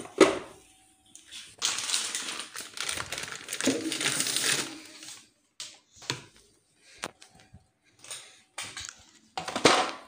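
Packaged food being put into a refrigerator: plastic packaging rustles and crinkles for about three seconds, then come scattered light knocks and clicks as items are set on the shelves.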